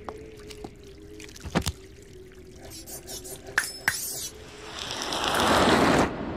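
Cartoon soundtrack effects: a steady eerie drone with scattered tinkling clicks and a high warbling sweep. Near the end a loud hiss swells up as a giant snake rears up.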